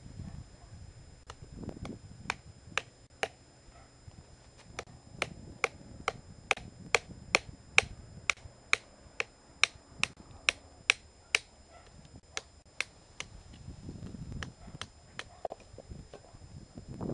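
Large knife chopping into a green wooden stick: a regular run of sharp knocks, about two a second, loudest in the middle and thinning to scattered strokes near the end.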